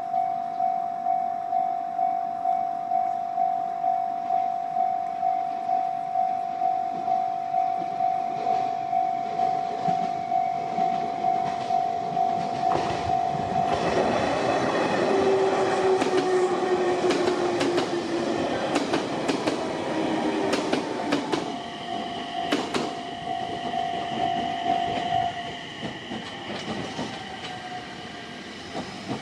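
Japanese level-crossing warning bell ringing, an electronic ding repeated about twice a second. About 13 s in, a train runs over the crossing, its wheels clicking over the rail joints. The bell stops about 25 s in.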